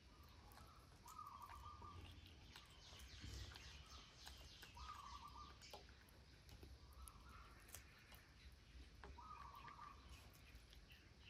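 Near silence: faint outdoor background with a bird's short trilled call repeating about four times, every two to three seconds, over a low rumble.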